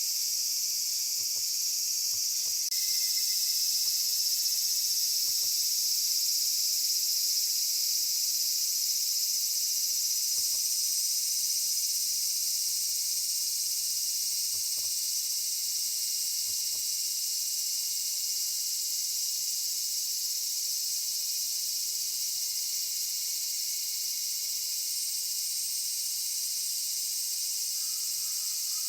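Steady, high-pitched chorus of insects, continuous without pauses, growing slightly louder about three seconds in.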